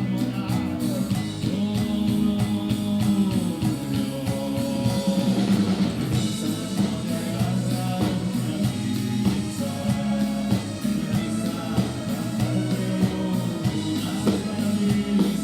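Live rock band playing at a sound check: drum kit, electric guitar and a singing voice.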